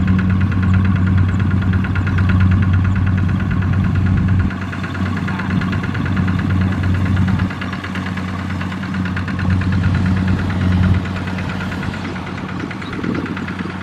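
Single-cylinder diesel engine of a Kubota RT140 two-wheel walking tractor chugging steadily with a rapid even knock as it pulls its trailer through sticky mud. Its deep hum weakens about four seconds in, comes back around eight seconds, and weakens again near eleven seconds.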